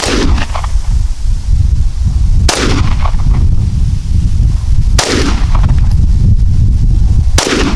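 Smith & Wesson SD9VE 9mm semi-automatic pistol firing single shots, four reports about two and a half seconds apart, each with a short echo. Wind buffets the microphone throughout with a steady low rumble.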